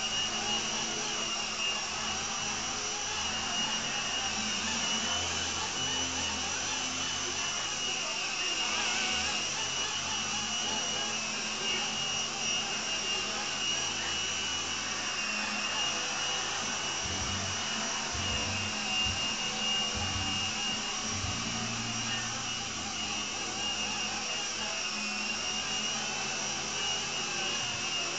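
Small flybarless fixed-pitch RC helicopter with a Lama V4 rotor head hovering: a steady high whine from its motors and gearing over the rush of the spinning rotors. The pitch wavers slightly as the throttle holds it in the air.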